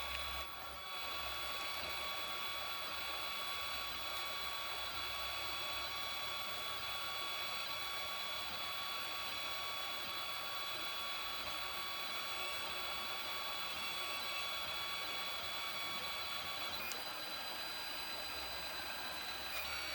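3D printer running as it prints: its stepper motors give a steady high whine of several tones over the cooling fan's hiss. Near the end there is a click and the tones shift as the motors change moves.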